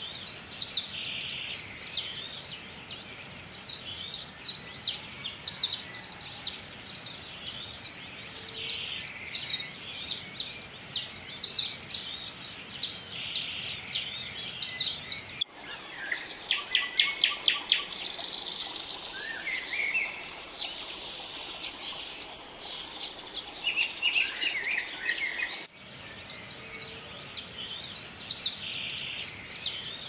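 Several songbirds chirping and singing in a dense chorus of rapid high chirps. About halfway through it switches abruptly to fewer birds singing trills and short rising and falling phrases, then switches back to the dense chirping near the end.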